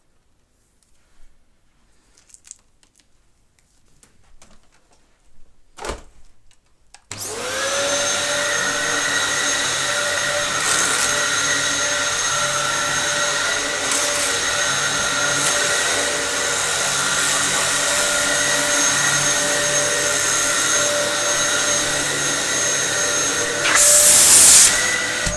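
A few handling clicks and a thump, then a Dyson upright vacuum cleaner switches on about seven seconds in: its motor whine climbs quickly and settles into a steady, loud, high-pitched whine over a rush of airflow. Near the end the rushing hiss briefly gets louder.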